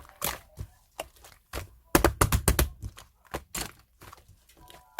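Irregular sharp clicks and crackles of something being handled, with a dense run of them about two seconds in.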